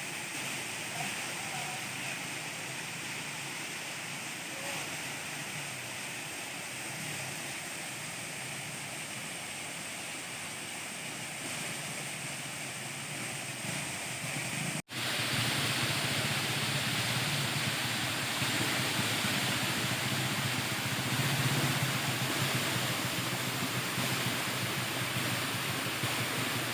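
Steady rush of flowing water from a waterfall or stream. It drops out for an instant about 15 seconds in and comes back louder.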